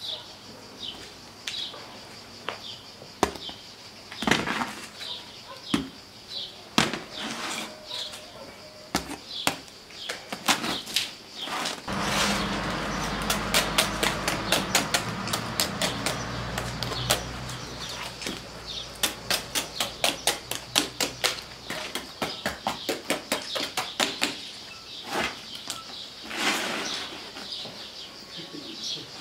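A metal rod clicking, scraping and knocking against the clay wall and rim of a tandoor oven as baked flatbreads are pried off, with birds chirping. Midway a low steady rumble comes in under a fast run of clicks for about ten seconds, then stops.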